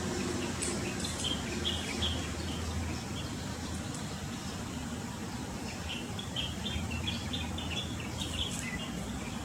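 Small songbird, a white-eye (pleci), giving quick series of short, high chirps in two bouts, one early and one in the second half, over a steady low background hum.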